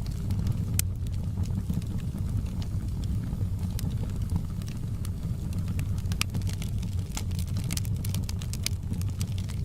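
Wood fire burning in a fireplace: a steady low rumble with frequent sharp crackles and pops, more of them in the second half.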